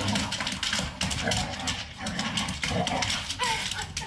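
Husky-type dog excitedly greeting its owner, with rapid scuffling and clicking of claws and movement on a hardwood floor, and a couple of short whines near the end.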